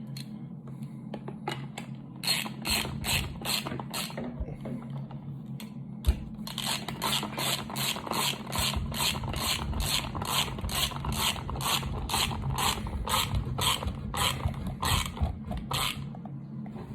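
Ratchet wrench clicking in quick, even strokes, about three clicks a second, as the stock lock nut is run down. There is a short run of clicks, a pause, then a longer steady run.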